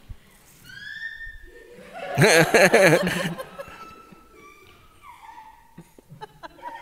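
Audience members laughing, loudest in a burst about two seconds in, then trailing off into scattered chuckles. A brief high-pitched squeal comes just before the laughter.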